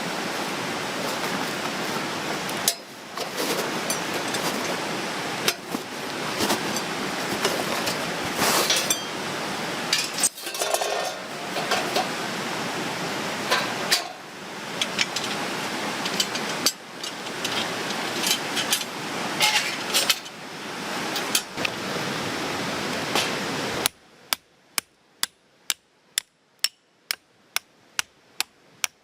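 A steady rushing background with scattered clicks and clinks, broken by several abrupt cuts. About five seconds from the end it gives way to a run of sharp, evenly spaced knocks, two to three a second, over a quiet background.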